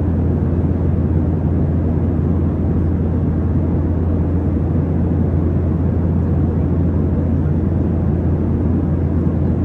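Passenger airplane's engines and airflow: a steady low rumble that does not change.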